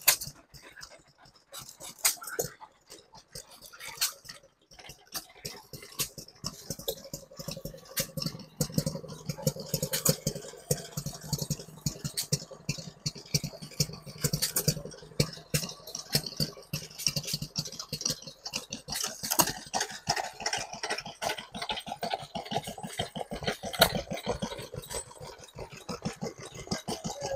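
Vintage stationary engines running, with a clatter of sharp irregular knocks from their firing and the belt-driven pumps they work. For a stretch in the middle the knocks come thick and steady.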